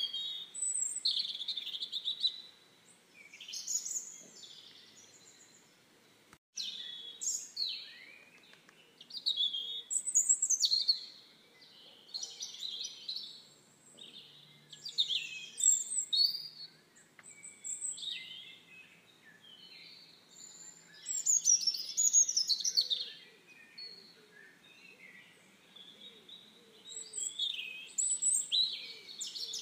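Songbirds singing: bouts of quick, high chirping phrases every couple of seconds, with a short gap about six seconds in.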